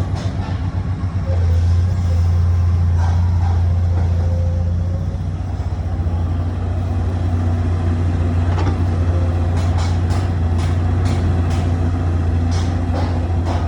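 Excavator engine running with a steady low drone, with a few knocks and clanks in the second half.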